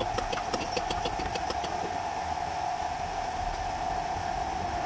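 A ratchet wrench clicking quickly, about six or seven clicks a second, for the first couple of seconds as a bolt is worked on the car's underside, over a steady mechanical hum.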